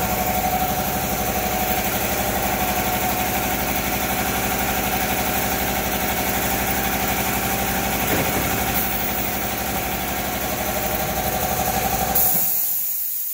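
UPVC window corner welding machine running with a steady, fast-pulsing mechanical hum. About twelve seconds in the hum cuts off abruptly and a pneumatic air hiss takes over.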